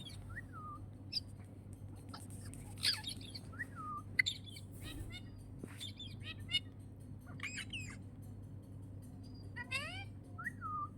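Pet parrot giving short chirps, squawks and whistles, several sliding downward in pitch, with a quick run of rising calls near the end, over a steady low hum.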